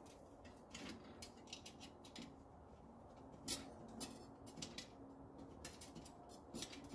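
Faint, irregular clicks and light metal ticks from steel spokes and small spoke nipples being handled while lacing a bicycle wheel, with two sharper clicks about three and a half and four seconds in.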